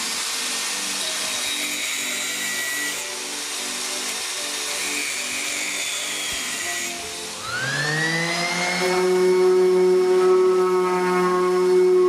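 Angle grinder with a thin cut-off disc cutting metal pins flush with a wooden tabletop, a steady high grinding hiss. About seven seconds in, a random orbital sander starts up, its whine rising for a second or so and then holding steady.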